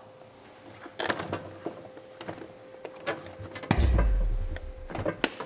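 Clicks and knocks of metal being handled, then about three-quarters of the way in a loud low electrical buzz lasting about a second and fading: a short circuit throwing a very big spark as a power drill is plugged in, knocking out the workshop lights.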